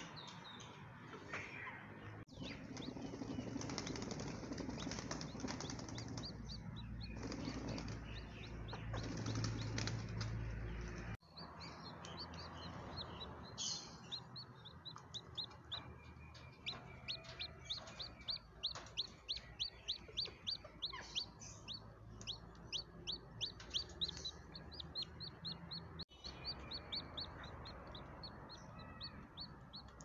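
Newly hatched chicken chick peeping, a long run of short high peeps at about two or three a second through the middle stretch. Before the peeping comes a loud stretch of rustling noise that breaks off suddenly.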